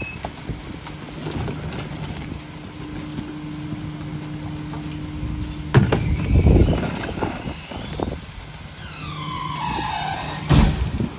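McNeilus rear-loader garbage truck idling with a steady hum. About six seconds in, a wheeled trash cart bangs against the hopper as its load is tipped in, and near the end the packer cycle starts with a falling squeal, then a heavy thud.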